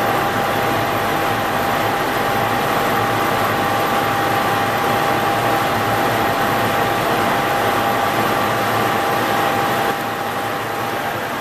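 Stanko 6T12 milling machine running a face mill through cast iron, taking a 1 mm cut under power feed: steady machining noise with a steady high tone from the running machine. The level drops slightly about ten seconds in.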